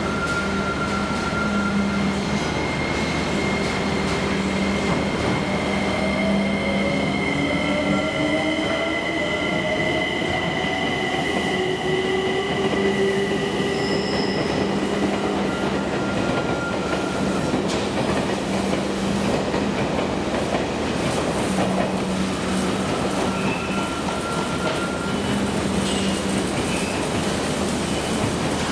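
JR Kyushu 885 series six-car electric express train departing: steady rolling rumble with high ringing squeal from the wheels. Lower whining tones rise in pitch as it gathers speed.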